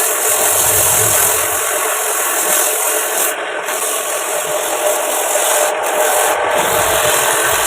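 Wood spinning on a homemade wood lathe, worked with a tool or sandpaper held against it: a steady rubbing, scraping hiss over the lathe's hum that breaks off briefly a few times.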